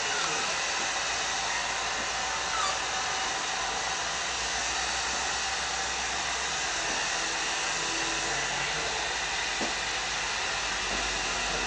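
Hair dryer running steadily: an even, unbroken rushing hiss.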